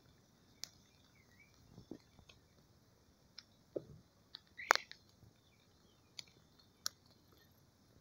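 Scattered faint clicks and crackles over a quiet background, about eight in all, the loudest just past the middle.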